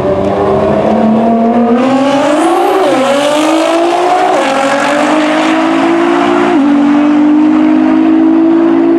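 Modified 1,100 hp Nissan GT-R's twin-turbo V6 at full throttle from a rolling start. Its pitch climbs in each gear and drops at quick upshifts about three, four and a half, and six and a half seconds in. A rushing hiss comes through as the cars pass close by, about two to four seconds in.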